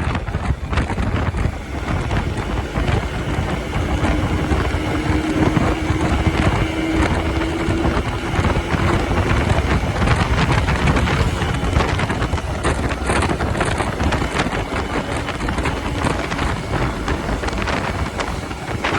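Suzuki Max100's two-stroke single-cylinder engine running in stock form, with wind noise on the microphone.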